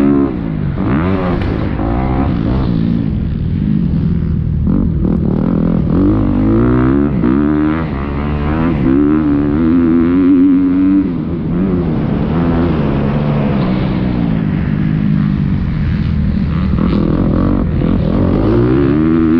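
Motocross bike's engine heard from on board while riding the track, its revs climbing and falling over and over as the throttle is opened and closed through straights and corners, with brief drops about four seconds in and again just past the middle.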